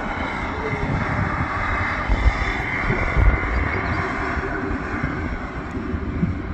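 Steady jet turbine noise from a parked Boeing C-17A Globemaster III, with a faint high whine over it, and wind buffeting the microphone in low gusts.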